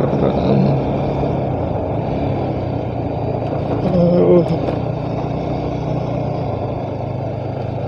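Motor scooter running at a steady road speed, a constant low engine hum under the rush of wind and road noise. About four seconds in, a short pitched sound, like a brief vocal sound, rises over it.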